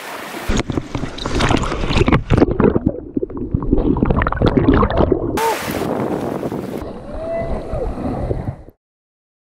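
Surf washing over a rock shelf and water sloshing around an action camera as it dips in and out of the sea, with bubbly underwater gurgles. The sound stops abruptly near the end.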